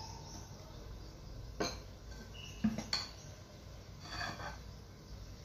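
Metal spoon clinking and scraping against a glass mixing bowl and ceramic bowls while ladling cake batter: a few sharp clinks between about one and a half and three seconds in, one with a short ring, then a softer scrape near the end.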